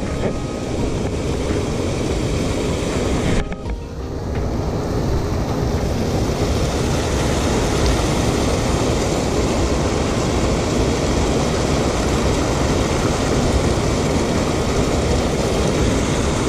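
Water rushing over a concrete spillway: a steady rush of white water, with a brief dip about three and a half seconds in.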